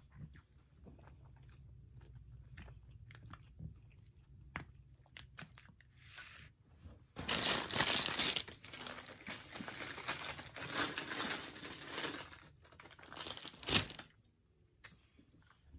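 Close-up chewing of lo mein noodles, with small wet mouth clicks. From about seven seconds in comes a loud, crackling rustle of a plastic takeout bag as a fried crab rangoon is pulled out of it. The rustle stops about a second before the end.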